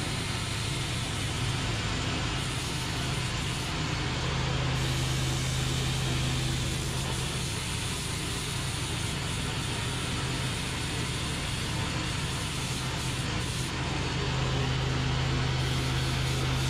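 Homemade gang-disc stone-cutting machine running: its small Honda petrol engine drones steadily while a stack of cutting discs grinds grooves into a stone block under a water spray, an even, harsh hiss over a low hum.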